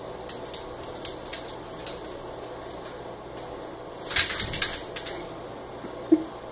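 A small dog's claws clicking on a tile floor, a quick patter of clicks about four seconds in with a few lighter clicks before it, and a short squeak near the end.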